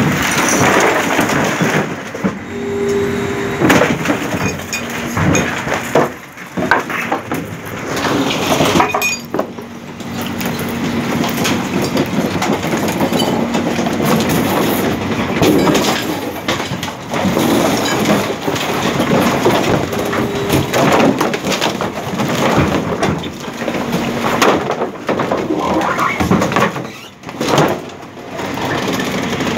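Rear-loading garbage truck's compactor crushing old wardrobe panels in the hopper: wood and fibreboard cracking and splintering with repeated sharp snaps and knocks, over a steady machine hum.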